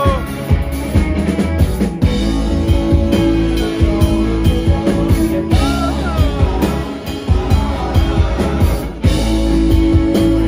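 A live rock band playing loud, with electric guitar, keyboard and drums, and the lead singer's vocals coming in briefly at the start and again about six seconds in.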